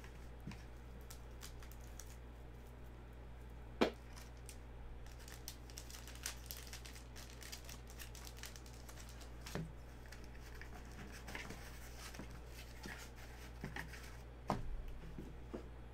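Trading cards being handled: plastic sleeves crinkling, with scattered light clicks and taps of cards and plastic holders, and a sharper click about four seconds in.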